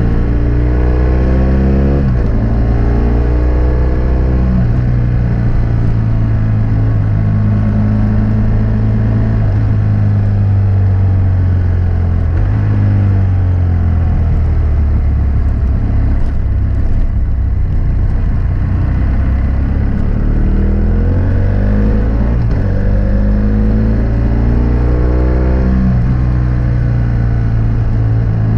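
2006 BMW F800S parallel-twin engine running through a GPR Furore Nero exhaust with its dB killer fitted, under way on the road. The engine revs up and drops in pitch at a gear change about two seconds in, eases off and slows through the middle, then pulls up again with another gear change near the end.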